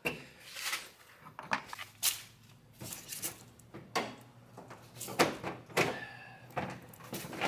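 Plastic push-in clips being pried out of a 2007 Honda Civic's plastic front shroud with diagonal cutters, and the panel being worked loose: a string of irregular clicks and knocks.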